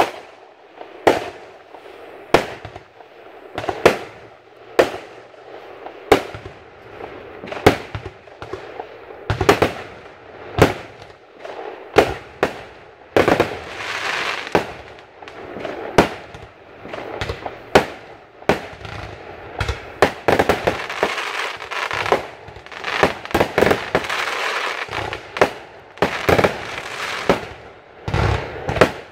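Aerial firework shells bursting, a sharp bang every second or so. The bursts come thicker in the second half, with crackling between them.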